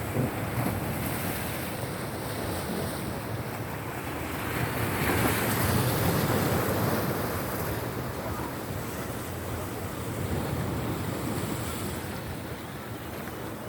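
Sea waves washing onto the shore, with wind buffeting the microphone. A wave swells louder about five seconds in, then eases off.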